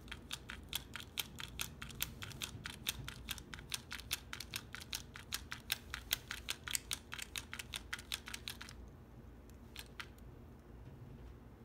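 Plastic Smurfette kids-meal toy clicking rapidly, about five clicks a second, as its wing-flapping mechanism is worked to make her fly. The clicking stops about nine seconds in, leaving a few single clicks.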